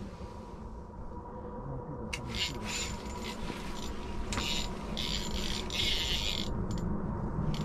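Low rumble of an airplane that grows steadily louder. About two seconds in, rasping, whirring bursts from an ice-fishing rod's reel being cranked come and go until about six and a half seconds in, as a fish is reeled up through the ice hole.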